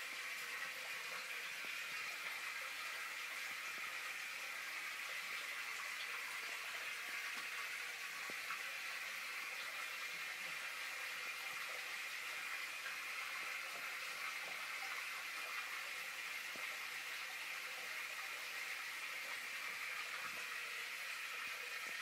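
Steady trickling and bubbling of water circulating through a large aquarium's filter and aeration.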